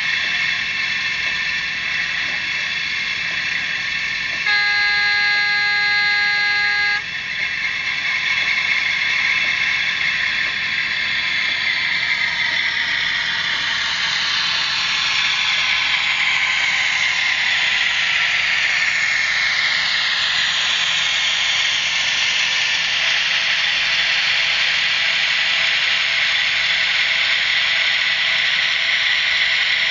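Sound decoder of a Piko DF7C model diesel locomotive playing through its small loudspeaker: a steady diesel-engine hiss, with a multi-tone horn blast of about two and a half seconds starting about four seconds in. Around the middle, a whine glides down in pitch.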